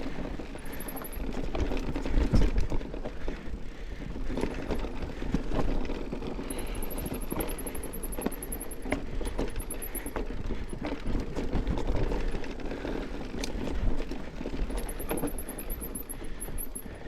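Mountain bike ridden over a rough dirt trail: the tyres run over dirt and rocks while the bike rattles and knocks in frequent short jolts.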